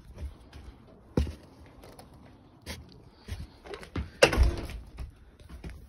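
A heavy insulated metal entrance door being handled: a few light knocks, then one loud thud with a short ringing about four seconds in.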